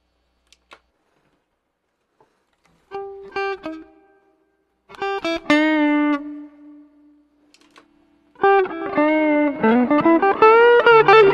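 Electric guitar played in short separate phrases: a few plucked notes, a longer held note, then a busier run near the end in which the pitch is bent up and back down.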